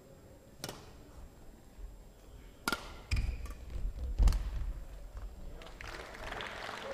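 Badminton rally: a shuttlecock struck by rackets three times, each a sharp crack, with thuds of players' footwork on the court floor around the last two hits. Near the end the crowd starts applauding as the point is won.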